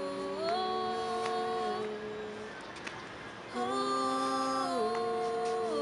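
Female vocal group singing a sustained 'ooh' in close harmony, a cappella. Several voices hold each chord and move to the next together. The sound thins out in the middle and the full chord comes back in about three and a half seconds in.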